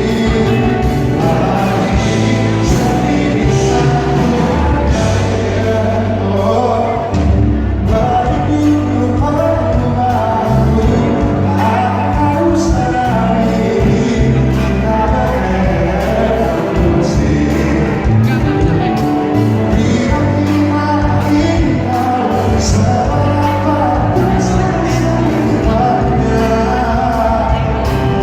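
A live pop band playing under a male lead vocalist singing, with steady bass and drums, heard with the echo of a large hall.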